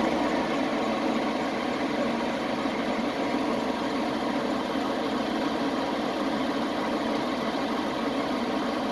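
Chevrolet Express 3500 van engine idling steadily and evenly, the misfire fixed so that it seems to run perfectly.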